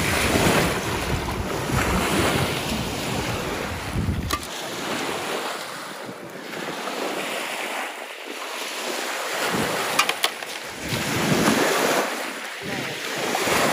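Small lake waves washing onto the shore, swelling and falling back every few seconds, with wind buffeting the microphone for roughly the first four seconds. A few sharp clicks sound about ten seconds in.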